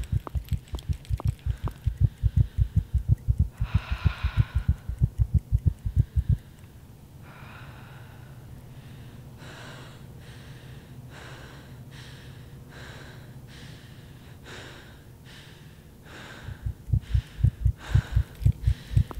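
Fast, low thumping pulse like a racing heartbeat, which stops about six seconds in. Quick, heavy breaths follow, roughly one a second, and the thumping pulse comes back near the end.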